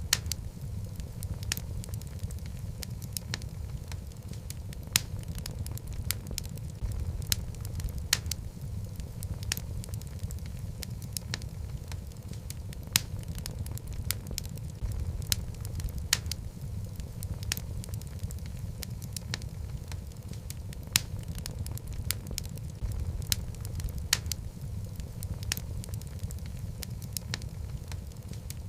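Wood fire burning in a fireplace: a steady low rumble of the flames with frequent sharp, irregular crackles and pops from the logs.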